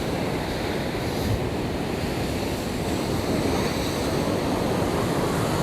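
Sea waves breaking and washing against shore rocks, a steady surging rush, with wind buffeting the microphone.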